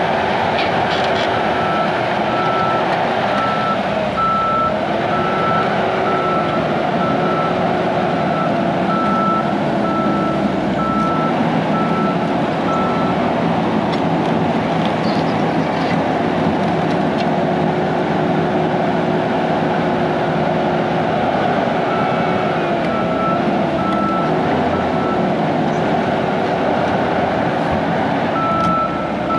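Hyundai tracked skid steer's diesel engine running under load while grading, its pitch rising and falling as it works. Its backup alarm beeps at about one beep a second through roughly the first half, then again for a few seconds later on and near the end.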